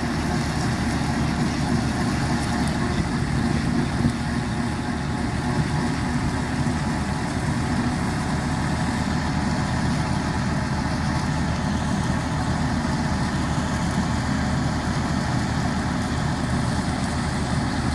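Tractor engine running steadily under load while it pulls a straw reaper (wheat straw cutter) that cuts and chops wheat stubble into bhusa.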